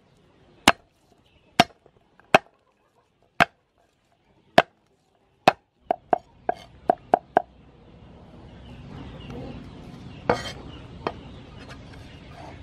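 Cleaver chopping garlic on a round wooden chopping block: sharp single knocks about once a second, then a quick run of about six chops, then two more knocks over a faint steady background hiss.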